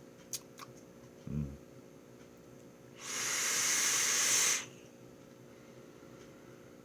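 A hit on a vape: one hiss of air and vapor lasting about a second and a half, the loudest sound here. Before it come a few light clicks and a short low thud.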